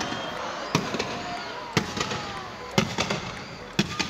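Fireworks going off: four sharp bangs about a second apart.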